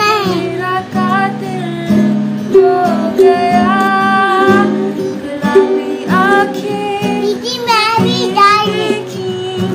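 A girl singing a song while strumming chords on an acoustic guitar; her voice wavers in a light vibrato on held notes near the end.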